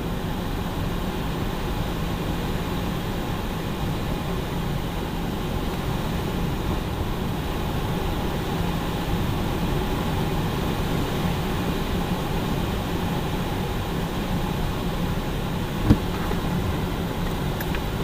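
Light aircraft in flight: steady engine drone mixed with rushing airflow, with one short sharp knock about two seconds before the end.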